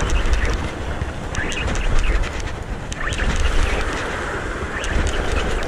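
Wind buffeting the microphone with heavy rumble, over surf washing against the rocks, with a few short splashy crackles.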